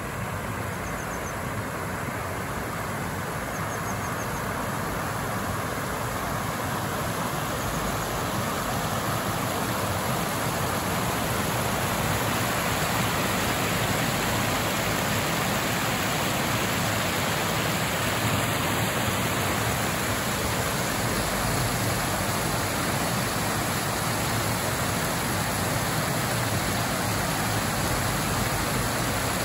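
River water pouring over a low stepped concrete weir: a steady rushing, growing louder over the first ten seconds or so, then holding even.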